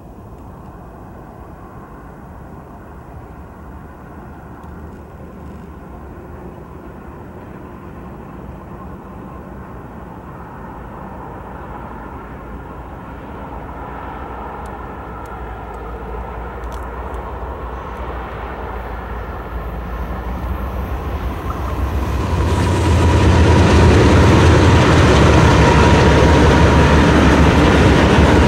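Diesel freight locomotives, led by a GE ES44AC, pulling a double-stack intermodal train and growing steadily louder as it approaches. About 22 seconds in the sound jumps to the loud, steady rumble of the train passing close by.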